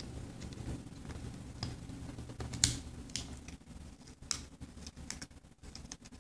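Silver tape being peeled by hand off a hard drive's metal cover: scattered small crackles and clicks, with one louder click about two and a half seconds in.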